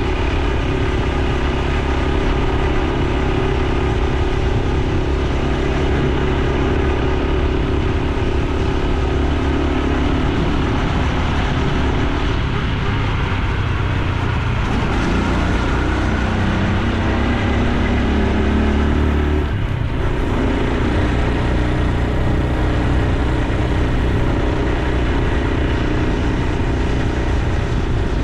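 Honda Super Cub C125's single-cylinder 125 cc four-stroke engine and exhaust while riding. The engine note dips around the middle, climbs for a few seconds, then drops suddenly about twenty seconds in.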